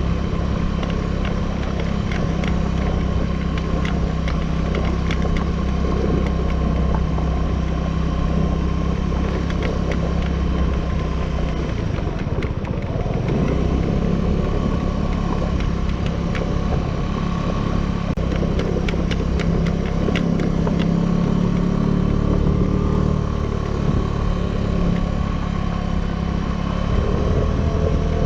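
Suzuki Burgman 200 scooter's single-cylinder engine running steadily under way, with scattered light clicks and rattles. About twelve seconds in, the engine note drops briefly, then climbs again.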